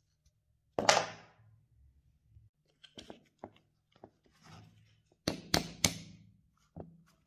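Steel pistol parts and a metal pick clicking and knocking against a wooden workbench and a rusty Tokarev TT-33 frame. One loud clack about a second in, scattered light clicks, then three sharp knocks in quick succession about five and a half seconds in, and a last one shortly after.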